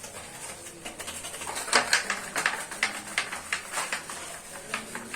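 Irregular light clicks and scratchy strokes of a paint brush scrubbing the split AC's plastic louver with detergent.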